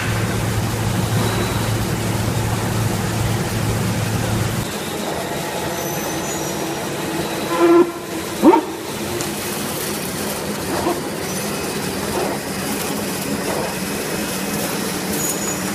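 Hand towel paper bagging and band saw cutting machine line running, a steady clatter of mechanical noise. A low hum drops out about a third of the way in, and two short, loud squeals come about halfway through.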